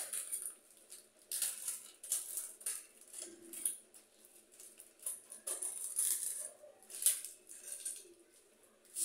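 Water heating in a covered stainless-steel pot on a lit gas burner, giving irregular short bursts of crackling and bubbling, one or two a second.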